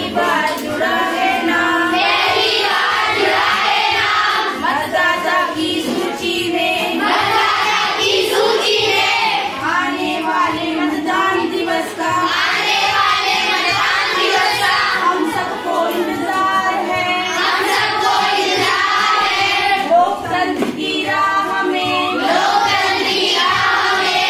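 A group of girls singing a song together in repeated phrases of a few seconds each, with short pauses between them.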